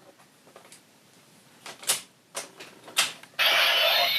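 Several sharp plastic clicks as the DX Tridoron toy's cockpit module is clipped into the chassis. About three and a half seconds in, a loud electronic sound effect starts from the toy's speaker.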